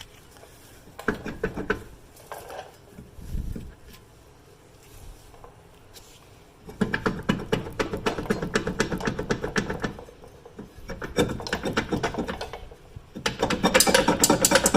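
Rusted rear brake rotor being worked off the wheel hub: a few metal knocks and a dull thud, then long bouts of rapid rattling and scraping of metal on metal as it is wiggled and pulled loose.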